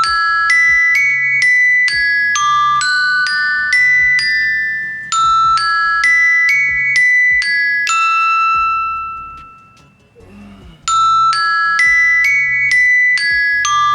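Phone alarm tone: a short melody of bright, bell-like mallet notes, about two a second, repeating over and over with a brief pause about ten seconds in.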